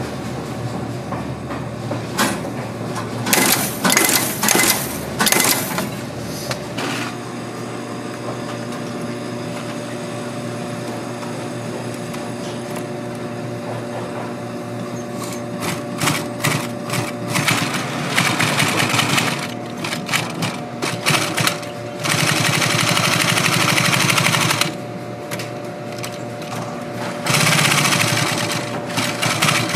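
Industrial sewing machine stitching a leather boot upper in stop-start runs, with two longer steady runs in the last third. In the first few seconds, a quick series of sharp mechanical clacks from a hook-setting machine fastening brass lacing hooks.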